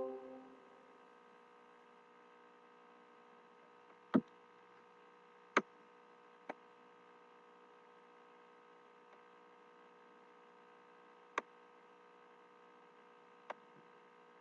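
A faint steady electrical hum made of several held tones, broken by about five short sharp clicks at uneven intervals.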